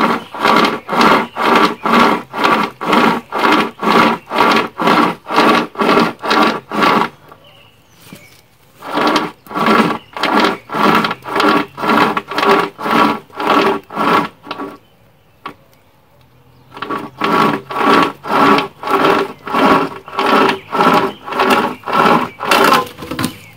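Sumpri pocket chainsaw, a length of saw chain pulled back and forth by two handles, cutting through a wooden branch with a rasping sound. It runs in three bursts of quick, even strokes about two a second, with short rests between them.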